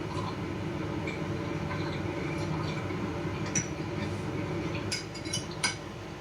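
A fork or spoon clinks a few times against a plate, most of it in the second half, over a steady low hum.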